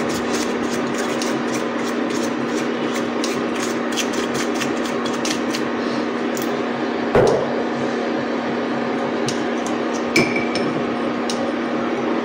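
A brush and metal candle mold clicking and tapping lightly as oil is brushed over the mold, with two sharper knocks about seven and ten seconds in as the metal mold is handled and set down. A steady hum with a constant low tone runs underneath.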